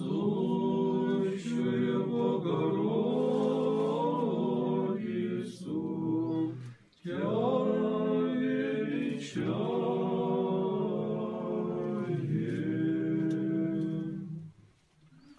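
Unaccompanied Orthodox church chant by men's voices, a slow melody sung over a low held drone note. There is a short pause for breath about seven seconds in, and the chant dies away near the end.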